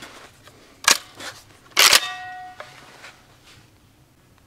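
Beretta 1301 semi-automatic 12-gauge shotgun being worked by hand before firing: a sharp metallic click about a second in, then a louder clack of the action closing with a brief metallic ring.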